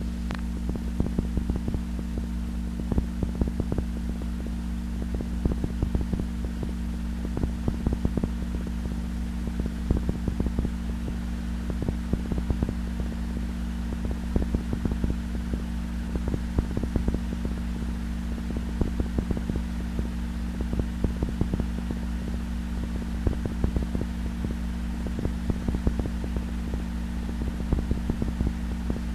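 Steady electrical mains hum with frequent small, irregular crackles and clicks: the noise of an old film soundtrack, with no speech or music.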